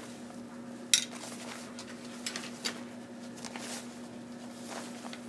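Straps and clips of a canvas tool roll loaded with tools being handled: one sharp click about a second in, then a few softer clicks and rustles, with a steady low hum underneath.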